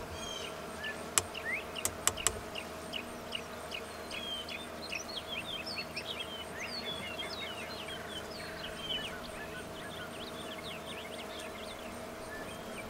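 Small birds chirping in quick, varied notes over a steady hum, with a few sharp clicks near the start.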